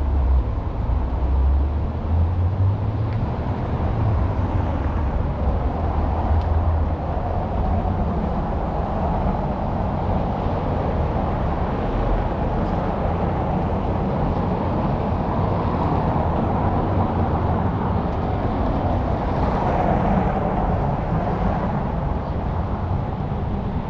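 Steady road traffic noise: cars passing in a continuous wash, with heavy low rumble in the first several seconds.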